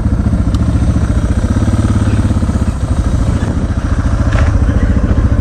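Vehicle engine running up close with a steady, rhythmic low pulse.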